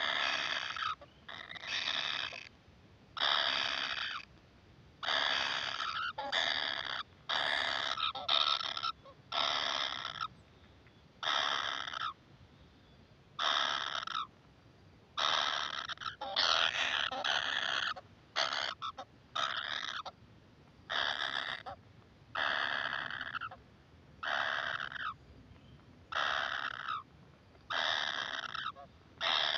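Kingfisher nestlings giving begging calls: a long run of harsh calls, each half a second to a second long, one after another with short gaps, more than twenty in all.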